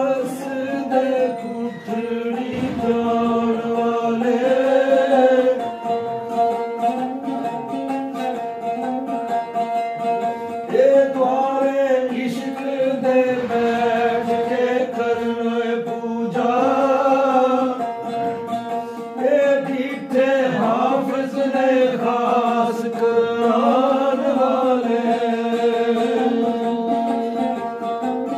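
A voice singing Sufi devotional poetry (arifana kalam) in long, winding phrases over a steady sustained instrumental drone.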